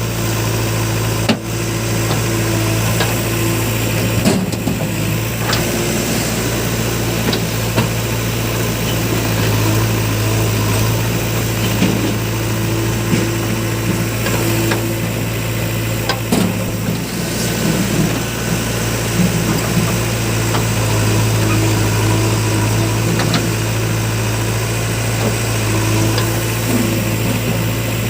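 Diesel engines of a backhoe loader and tractor running steadily during loading, with a few short knocks.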